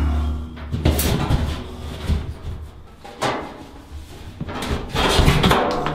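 A new bathtub being manoeuvred into its alcove: a series of knocks and scrapes as the tub shell bumps and slides against the floor and wall framing.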